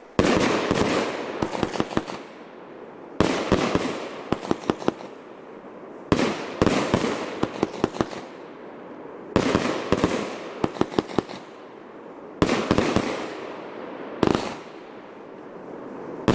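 Riakeo Monster firework battery firing shot after shot, about one every three seconds, six in all. Each shot is a loud bang that fades into a hiss, followed by a quick run of sharp crackling pops.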